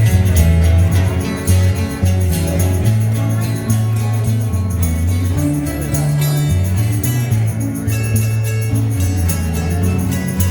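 Live acoustic rock band playing: strummed guitars over a bass line that moves between low notes every second or two, with light percussion keeping time.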